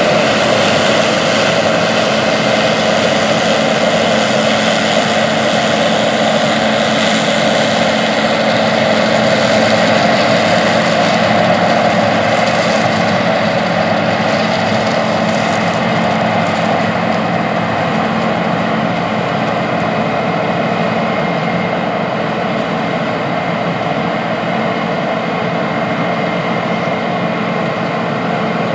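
John Deere combine running steadily under load while harvesting wheat: its engine and threshing machinery make a loud, even mechanical drone with a few steady tones and no breaks.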